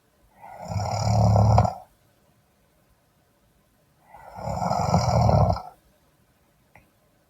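A man snoring: two long snores, each swelling louder before breaking off, about three and a half seconds apart with quiet breathing pauses between them.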